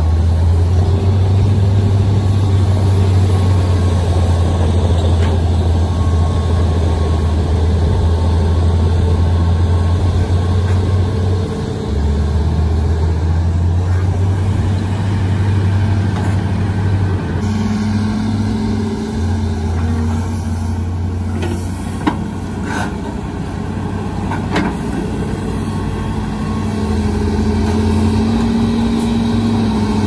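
Hitachi Zaxis 210 excavator's diesel engine running under load, its steady hum shifting in pitch as the hydraulics work the boom and bucket. A few sharp knocks come about two-thirds of the way through.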